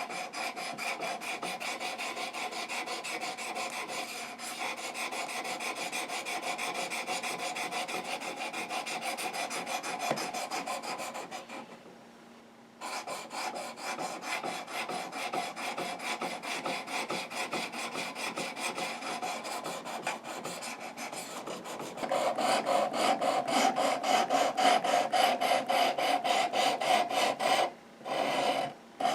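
A Spyderco Native 5's SPY27 steel blade being stroked rapidly and steadily along a coarse 400-grit sharpening stone on a Work Sharp Precision Adjust guided sharpener, a fast run of rasping strokes. This is the coarse stage, raising a burr on the edge. The strokes pause briefly near the middle, grow louder about two-thirds of the way in, and pause again just before the end.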